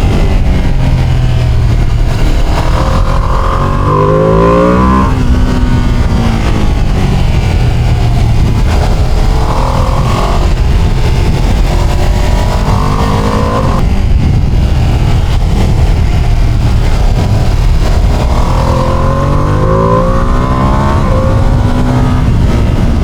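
Ducati Panigale motorcycle engine and exhaust heard from the rider's seat, accelerating hard several times: the pitch climbs in each pull and drops back at the shifts, over a steady low rumble.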